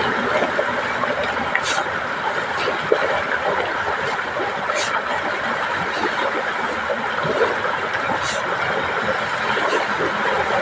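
An engine running steadily, with a short high hiss recurring about every three seconds.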